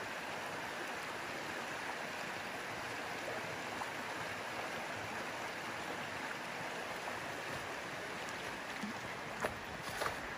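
Steady rush of a mountain trout stream flowing over its rocky bed. A few light clicks sound near the end.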